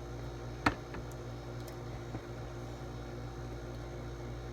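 Steady low electrical hum with faint hiss, broken by one sharp click less than a second in and a few faint ticks.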